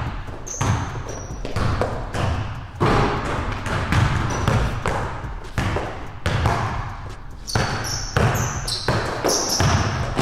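Basketball dribbled on a hardwood gym floor, irregular bounces echoing in the hall. Short high sneaker squeaks come now and then, most of them near the end.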